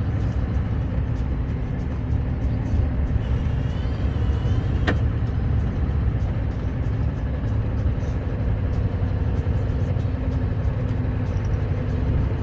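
Scania R560 truck's V8 diesel engine and tyre noise while driving, a steady low rumble, with a single sharp click about five seconds in.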